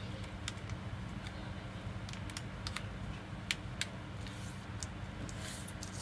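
Sheet of printer paper being folded and creased on a wooden desk: scattered light taps and clicks of fingers pressing the fold, then brief paper rustling and sliding near the end.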